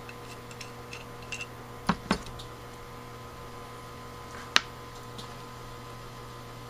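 Light clicks and knocks of metal carburetor parts handled on a workbench: two knocks about two seconds in as the carburetor is set down, and one sharp click a couple of seconds later. A steady low hum runs underneath.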